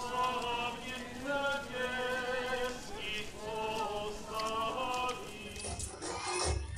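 Singing, a slow melody of held notes. About five and a half seconds in it gives way to loudspeaker music with a heavy bass.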